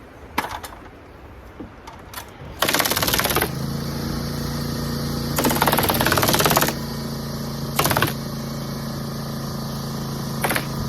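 Roofing staple gun firing in rapid-fire bursts into ice-and-water-shield underlayment, four bursts, the longest about a second. From about a third of the way in, a motor runs with a steady hum under the bursts.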